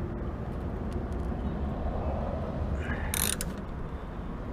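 Hand socket ratchet clicking as it works a tight tow-hook mounting bolt, with a short, sharp metallic clack about three seconds in.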